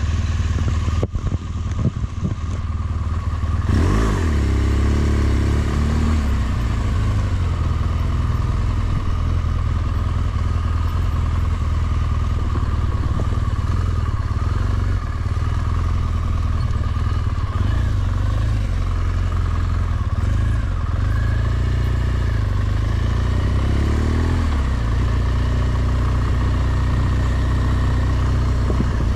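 Large adventure motorcycle's engine running as it is ridden slowly, a steady low engine note with brief rises in revs, one about four seconds in and another about twenty seconds later.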